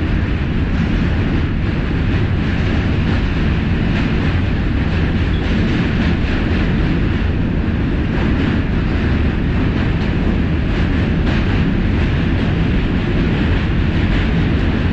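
New York City subway train running over the Manhattan Bridge, heard from inside the car: a steady, loud rumble of wheels on the rails, with occasional faint clicks.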